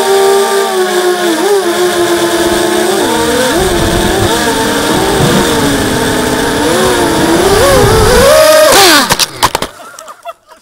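Brushless motors and propellers of a ZMR250 racing quadcopter whining through its onboard camera, the pitch rising and falling with the throttle. Near the end the pitch swoops up and drops away, followed by a clatter of knocks as the quad crashes into a tree and the motors stop.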